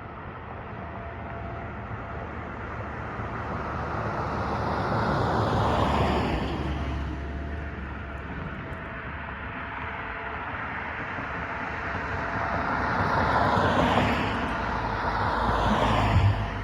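Cars driving past one after another, tyre and engine noise swelling and fading with each pass: one about six seconds in, another around fourteen seconds, and a third just before the end. A faint steady tone sits underneath.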